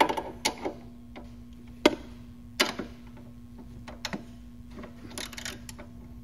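Hand wrench clicking and tapping against the steel seat-mounting bolts and bracket as they are tightened: irregular sharp metallic clicks, loudest in the first three seconds, with a few lighter ones later.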